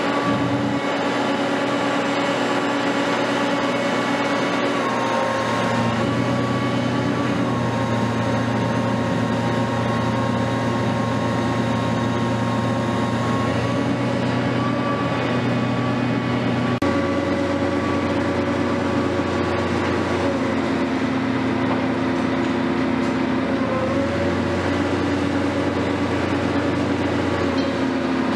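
Hitachi 470 long-reach demolition excavator running steadily under work, its diesel engine and hydraulic pump giving a continuous drone with a whine above it. The note shifts in pitch a few times, clearly about five seconds in, about seventeen seconds in and again near the end.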